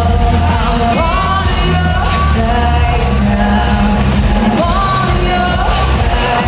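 Trance music played loud over a club sound system in a large hall: a woman's sung vocal line over a steady heavy bass.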